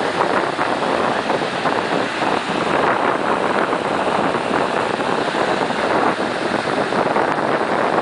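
Ocean surf and seawater washing over a rocky tidepool shelf, a steady rushing noise.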